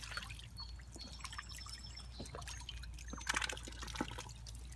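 Duck bathing in a shallow water trough: a run of small splashes and drips, with one louder splash a little after three seconds in.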